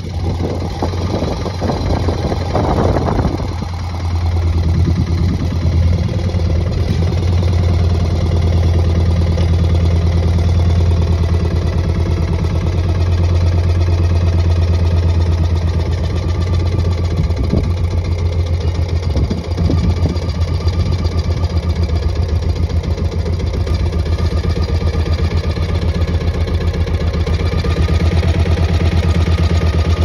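A boat's engine running steadily under way: a loud, low, even drone with a fast regular pulse.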